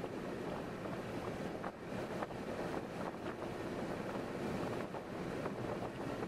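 Steady road and wind noise of a car on the move, with a few faint ticks.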